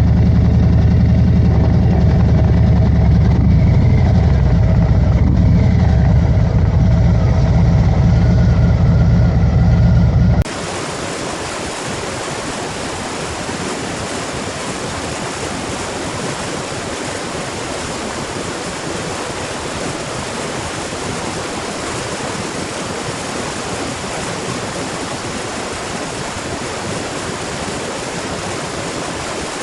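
Bass-heavy electronic music, cut off suddenly about ten seconds in by the steady, even rush of a waterfall.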